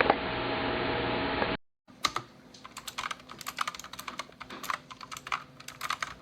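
A steady hiss with a low hum cuts off abruptly about a second and a half in. After a brief silence, someone types quickly on the RK Royal Kludge S108 mechanical keyboard, its clicky blue switches giving a rapid, uneven run of clicks.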